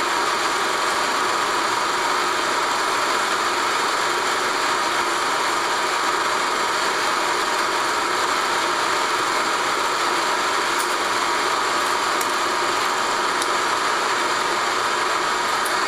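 Steady mechanical running noise of an 8 mm film projector's motor and film transport as the reel runs out, with a few faint clicks near the end.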